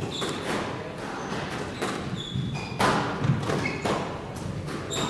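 Squash rally: the ball struck by rackets and smacking the court walls, several hard echoing hits about a second apart. Between the hits come short high squeaks of court shoes on the wooden floor.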